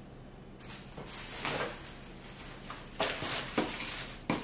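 Rustling and handling of packaging in a cardboard box, in several bursts, with a few sharp knocks in the second half.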